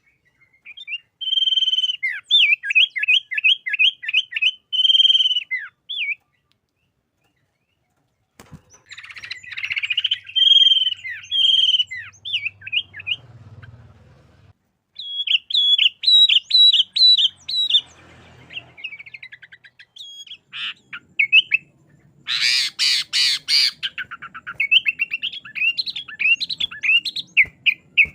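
Sooty-headed bulbul singing in rapid runs of chirped and whistled notes, the phrases broken by pauses, including a fully silent gap of about two seconds early on. About four-fifths of the way through comes a louder, harsh, rasping burst.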